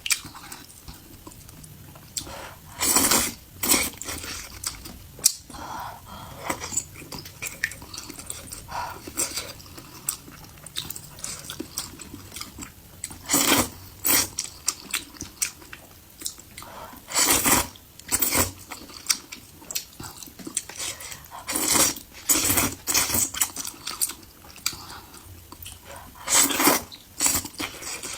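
Close-miked eating: wet chewing and biting, with louder bursts of about half a second every few seconds.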